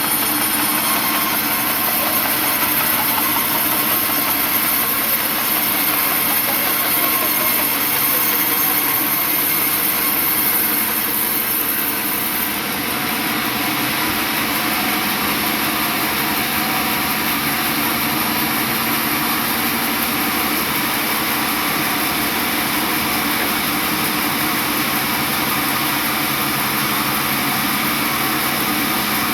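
Sawmill machinery running steadily, a dense mechanical drone with a strong high hiss that eases about twelve seconds in.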